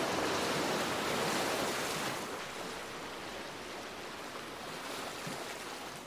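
Ocean surf washing in, loudest over the first two seconds, then easing to a softer wash.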